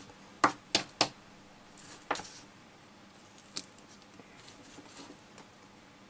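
Soldering iron tip being cleaned and tools handled on the bench: a few sharp clicks and taps, three close together in the first second, another about two seconds in and a fainter one midway, then faint scratching.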